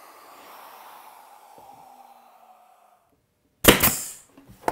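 Ridgid cordless nailer firing once into the plywood cabinet box: a single loud sharp shot about three and a half seconds in, with a fainter click just before the end. Before it, only faint room hiss.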